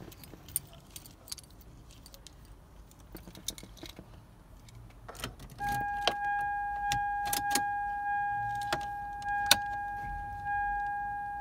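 Car keys jangling with small clicks as the key goes into the ignition of a 2002 Toyota Sienna. About halfway through, the van's electronic warning chime starts, dinging about once a second.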